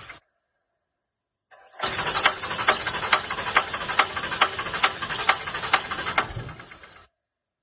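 A 2007 Ram 3500's 5.9 L 24-valve Cummins diesel is turned over by its starter in a steady rhythm of compression strokes without firing. It starts about a second and a half in and stops about seven seconds in. The engine will not start because the fuel system builds only about 1200 psi of rail pressure while cranking instead of the 5000 psi it needs, which the owner blames on a bad lift pump.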